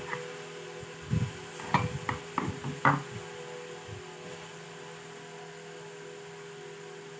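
Several short, light clicks and knocks, bunched between about one and three seconds in, over a steady electrical hum.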